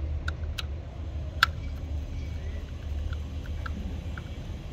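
Screwdriver working the wire terminal screws of a plastic 32 A double-pole isolator: a few short clicks and ticks, one sharper click about a second and a half in, over a steady low rumble.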